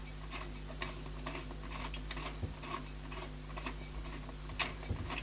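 Small irregular clicks and ticks, several a second, as a screwdriver works the mounting screws of a Cooler Master Hyper 212 Evo CPU cooler down onto the motherboard. A faint steady low hum runs underneath.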